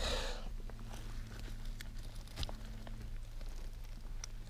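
Small hand digging tool scraping and picking at packed, rust-hardened dump soil around a buried crock: a soft scrape of crumbling dirt at the start, then scattered light ticks.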